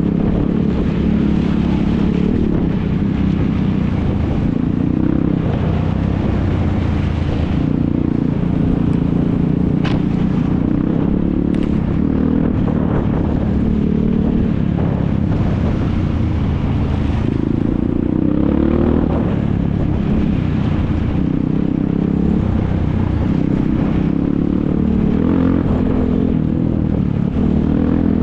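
ATV (quad bike) engines running and revving, their pitch rising and falling with the throttle.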